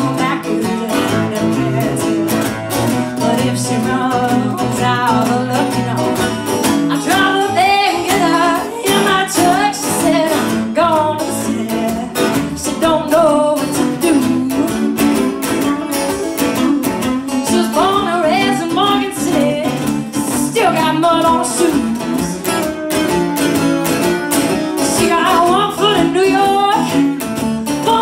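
Live Cajun-style song: a woman singing lead over two acoustic guitars strumming steady chords.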